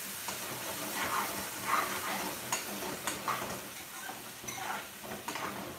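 Long metal spoon stirring and scraping chicken jalfrezi through its thick, sizzling sauce in a metal frying pan over a gas flame, in a series of uneven strokes.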